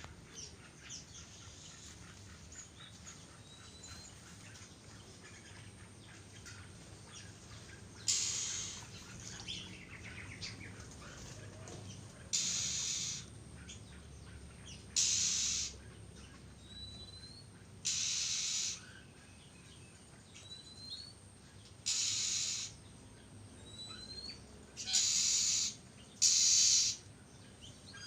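Young oriental magpie-robins (kacer) calling: seven harsh, raspy calls, each under a second long and spread out at intervals of a few seconds, with short thin rising chirps in between.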